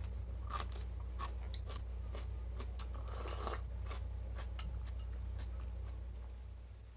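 A person chewing crunchy Japanese pickles (tsukemono) close to the microphone: irregular crisp crunching clicks, with a steady low hum underneath that fades near the end.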